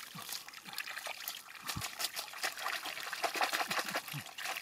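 Wet mud squelching and muddy water dripping and trickling as gloved hands dig through a shallow mud pool and drop small fish into a plastic basket: a dense patter of small wet clicks and splashes, busier in the second half.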